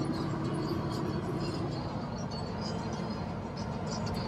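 Steady drone inside the cab of a Peterbilt 389 semi truck cruising on the highway: its Cummins X15 diesel engine under way, mixed with road noise.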